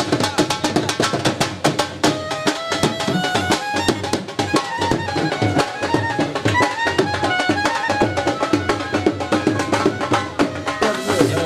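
Live drums played in a fast, steady rhythm, with a melody instrument playing held notes that step up and down over the beat.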